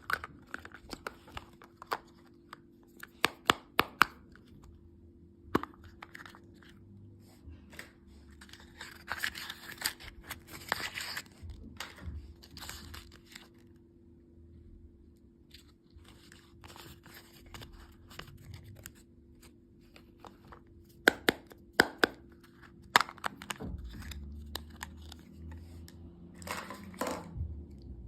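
Close handling of sweets and their packaging: plastic wrappers tearing and crinkling in short bursts between sharp clicks and taps at irregular moments, over a faint steady hum.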